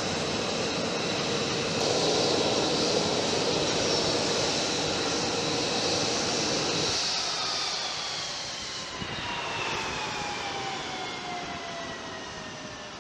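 F-35's Pratt & Whitney F135 jet engine idling, then shut down about seven seconds in: the rumble drops away and a high turbine whine falls steadily in pitch as the engine spools down.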